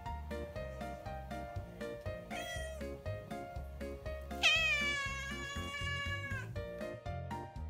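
Ginger tabby cat meowing: a short meow about two seconds in, then a long, louder meow lasting about two seconds, an attention-seeking call to be played with. Background music plays throughout.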